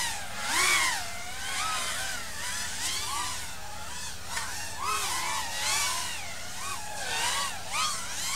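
Several 5-inch FPV racing quadcopters flying together, their brushless motors whining in overlapping tones that swoop up and down constantly with throttle.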